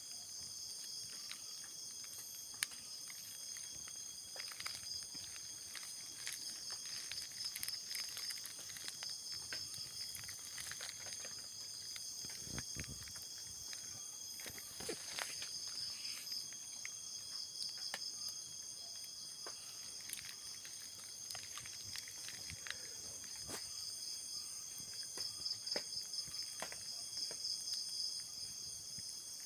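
Insect chorus: steady high-pitched trilling that pulses in stretches, with scattered faint clicks.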